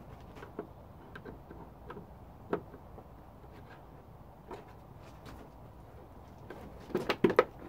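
Light scattered clicks and taps of hand work on a scooter's plastic body panels and screws, with a quick cluster of louder clicks and knocks near the end.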